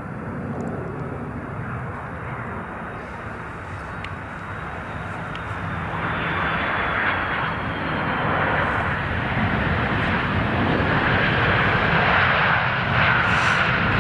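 Airbus A330-200 airliner's jet engines as it comes in low, touches down and rolls out: a steady jet roar with a faint high whine, growing steadily louder.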